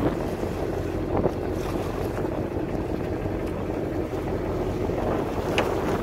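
Fishing boat at sea: a steady low drone from the boat with wind buffeting the microphone and sea water washing past. A couple of short knocks, about a second in and near the end.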